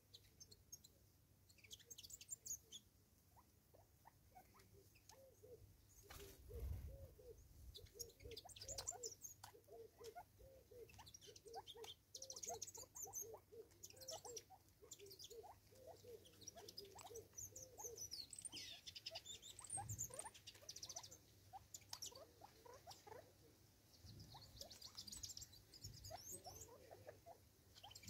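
Faint, quick pecking taps of Natal spurfowl feeding at a tree stump, with a run of soft low notes through the middle and scattered high chirps of small birds.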